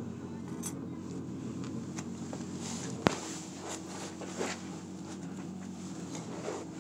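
Steady low machine hum, with one sharp click about three seconds in and a few faint ticks.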